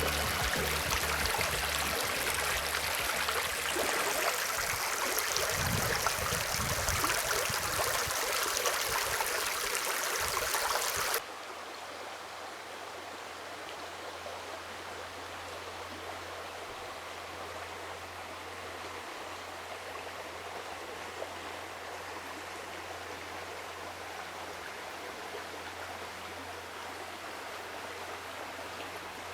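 Rushing water, loud and steady, which cuts off suddenly about eleven seconds in to a much quieter steady hiss with a low hum underneath.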